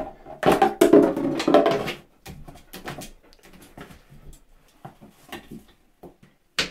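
A dog's paws and claws scrabbling and clattering on a ceramic washbasin, loudest in the first two seconds as a plastic soap bottle is knocked into the basin, then lighter knocks, taps and scratches as it paws at a ball wedged behind the tap.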